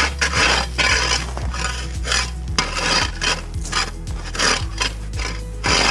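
Long-handled ice scraper chipping and scraping a layer of ice off a walkway mat, in quick repeated strokes, about two a second.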